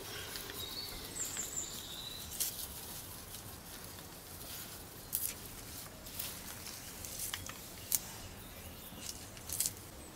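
Cherry leaves rustling and crackling as hands strip them from bunches of freshly picked cherries, with several sharp snaps and crinkles scattered through. A bird chirps a few times near the start.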